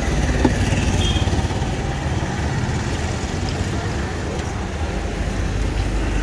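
Steady low rumbling background noise, with no distinct sound standing out above it.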